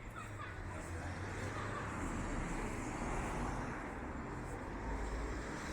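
City street ambience: a steady hum of road traffic with cars passing.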